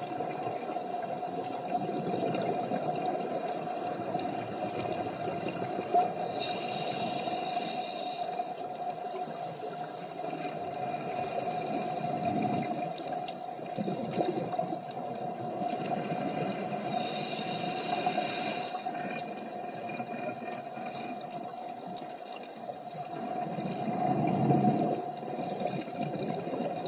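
Underwater sound on a scuba dive: a steady hum over rumbling water noise, with two hissing rushes of scuba regulator exhaust bubbles, about six and seventeen seconds in, and a louder low rush near the end.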